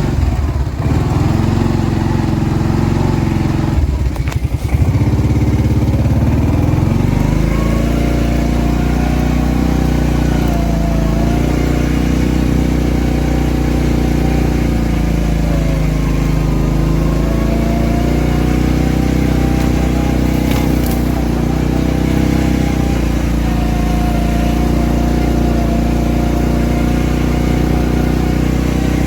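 Four-wheeler (ATV) engine running while being ridden. About four seconds in it drops briefly, then picks up speed, its pitch rising and falling gently with the throttle.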